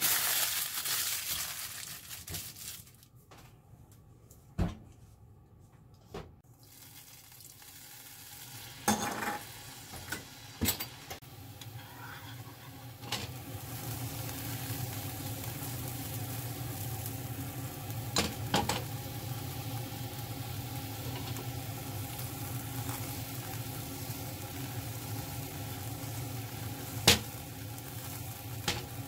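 White wine sizzling and simmering in the hot frying pan used to sear the beef, deglazing and reducing. The sizzle builds over several seconds and then holds steady, with occasional sharp knocks of a utensil scraping against the pan.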